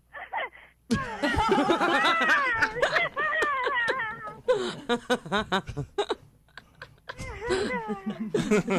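A woman laughing hard, in bouts with a short lull a little after the middle.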